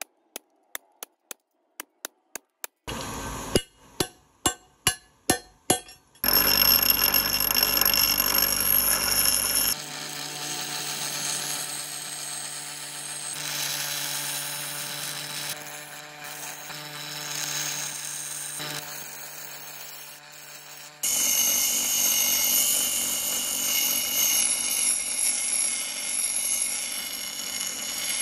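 A few sharp metallic clicks and then a run of louder strikes on steel, followed by a bench grinder wheel grinding the steel blade edge of a forged shuriken. The grinding is a steady whine with fixed high tones and shifts in level as the work changes.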